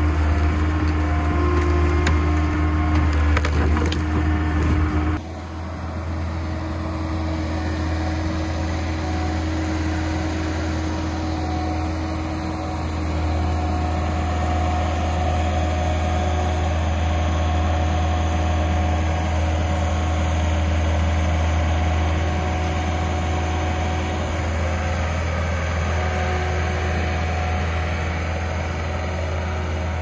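John Deere 317 skid steer engine running steadily under load while its bucket pushes into a brush pile, with branches cracking and snapping. The sound changes abruptly about five seconds in.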